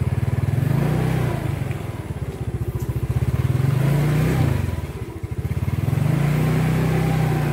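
Small motorcycle engine running as the bike rides along, revving up about a second in, easing off near the middle and picking up again.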